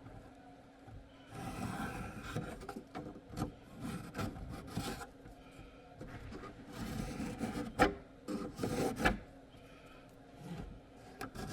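Pencil scraping along the side of a wooden drawer in irregular strokes, marking cut lines, with two sharp knocks of the drawer being handled late on.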